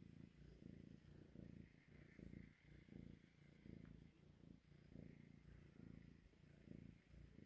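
Kitten purring softly, a low purr that pulses about twice a second.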